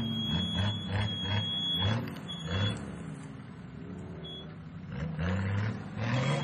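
Off-road 4x4's engine revved in short repeated blips as it crawls over steep, uneven ground, easing off in the middle and revving again near the end. A thin high tone sounds over the first two seconds.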